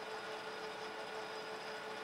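Metal lathe running, spinning a flywheel casting between centers: a steady mechanical whine with several held tones over a drive-train hum.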